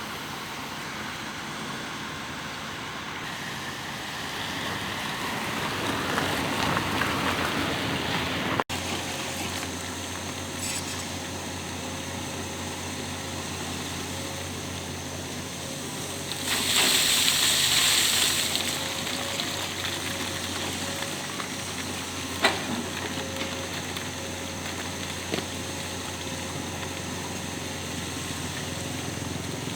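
Heavy construction machinery running with a steady low engine hum. A loud hiss comes for about two seconds a little past halfway, and there is a single sharp knock later on.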